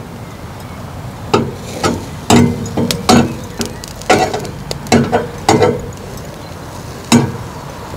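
Cooking utensils knocking and clinking, about a dozen irregular strikes, some with a short ringing tone, over a steady background noise.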